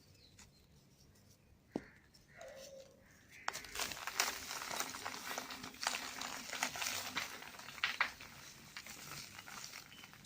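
Dry cement balls and cubes crumbling: a few faint clicks at first, then from about a third of the way in a dense run of crunching and crackling with sharp snaps, easing off near the end.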